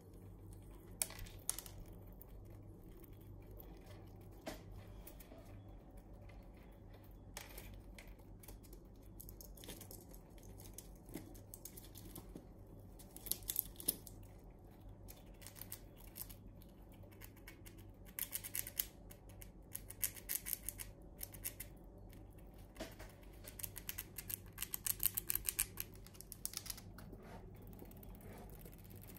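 Red squirrel gnawing pine nut shells and pulling at the scales of a large pine cone: scattered sharp cracks and several runs of rapid, crisp crunching.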